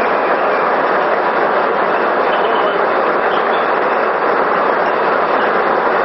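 Steady, loud rush of water pouring through a running micro-hydro turbine.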